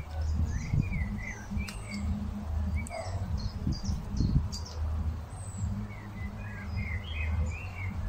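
Small songbirds chirping and warbling in short, scattered phrases, over a steady low rumble.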